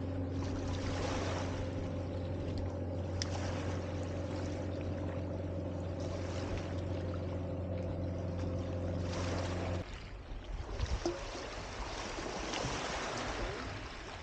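Waves washing on a beach, rising and falling every few seconds, over a steady low engine drone that cuts off abruptly about ten seconds in. After that, waves and a few light knocks.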